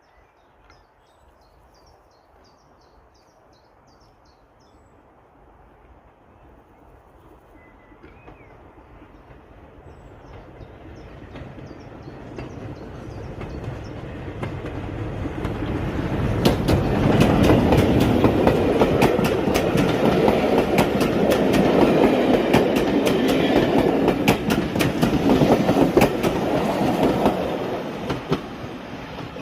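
A train approaching and passing: a rumble that builds over about ten seconds, then, as it goes by, the wheels clicking rapidly over rail joints, fading away near the end.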